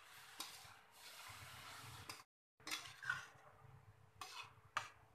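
Faint stirring of grated carrots and sugar in a metal kadhai: a spatula scraping and clinking against the pan, with a few distinct scrapes in the second half.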